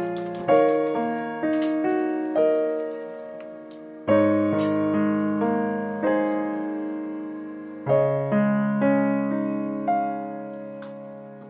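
Background piano music: slow chords and single notes, each struck and left to fade.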